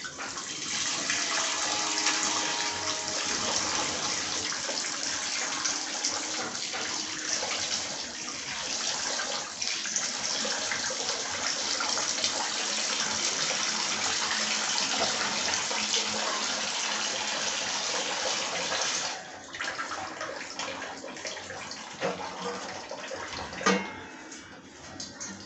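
Tap water running into a steel pan as cut rohu fish pieces are rinsed in it: a steady splashing hiss that cuts off suddenly about 19 seconds in. After that come quieter scattered handling and water sounds, and one sharp knock near the end.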